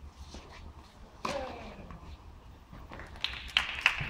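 A brief shout about a second in, then scattered clapping from a few spectators near the end.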